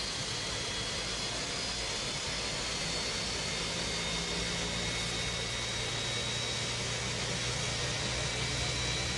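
Steady rushing cabin noise inside an airliner, with faint steady high whines and a low hum that comes in about halfway through.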